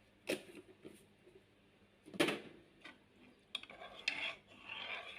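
A spoon clinking against a bowl: a sharp knock, a louder one about two seconds in, then busier scraping and clinking from about three and a half seconds in as salt is stirred into rice-flour batter.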